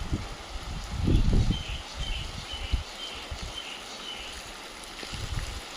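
Steady hiss of falling rain, with low rumbling bumps on the microphone, loudest about a second in. In the middle a bird calls a run of about six short, evenly spaced high notes.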